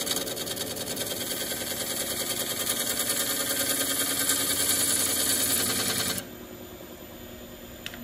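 A wood lathe turning tool cutting into a spinning hawthorn burl cast in epoxy resin, making a loud, evenly pulsing scraping hiss. The cut stops about six seconds in, leaving the quieter hum of the lathe running. A single click comes near the end.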